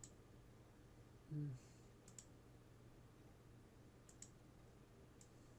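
A few faint computer mouse clicks, several in quick pairs, over a low steady hum.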